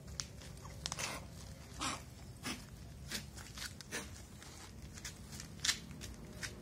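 Faint footsteps scuffing on a paved surface: a string of short, irregular steps and scrapes.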